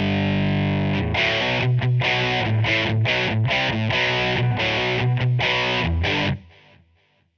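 Electric guitar played through a Line 6 POD 2.0 amp-modelling preset, recorded direct: a held chord for about a second, then a quick riff of short repeated notes that stops about six seconds in and dies away.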